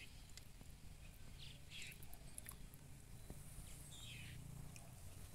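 Near silence: faint outdoor background with a low steady hum and a few faint short high sounds, the last one falling in pitch.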